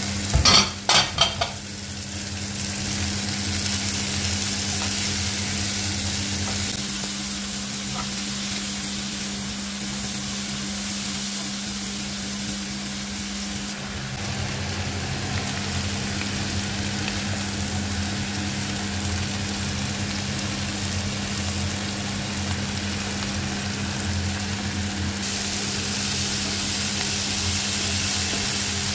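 Food sizzling as it fries in a nonstick frying pan, a steady sizzle with a spatula stirring through it. A quick cluster of sharp knocks and clatters about a second in is the loudest moment, and a steady low hum runs underneath.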